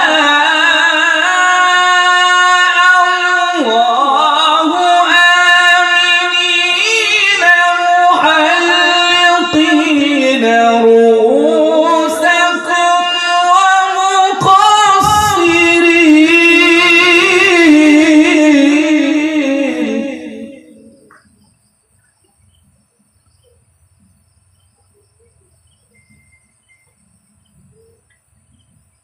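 A man's voice reciting the Quran in the melodic qirat style, drawing out long, ornamented notes that waver and bend in pitch. The phrase ends about twenty seconds in, and after it only faint room sound remains.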